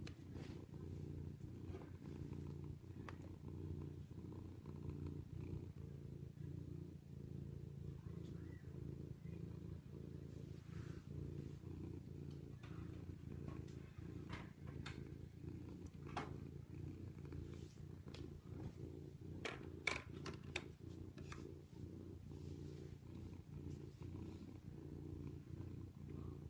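Domestic cat purring steadily, a low continuous rumble: a mother cat purring while her kittens nurse. A few faint clicks come through in the middle stretch.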